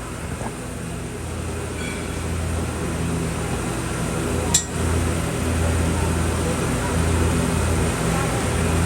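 Steady low electrical hum that swells and fades in level, with a single sharp click about four and a half seconds in.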